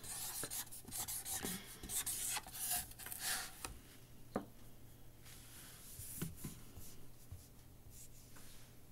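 Handwriting on a desk: quick scratchy strokes of a writing tool, busiest over the first four seconds, then fainter and sparser.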